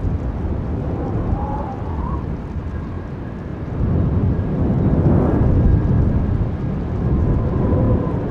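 A deep, steady rumble that swells about four seconds in, with faint wavering whistle-like tones above it.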